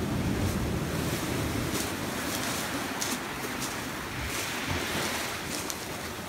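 Ocean surf washing in a sea cave, a steady rush with a low rumble heaviest in the first couple of seconds, and wind buffeting the microphone. A few sharp crunches of footsteps on black sand cut through it.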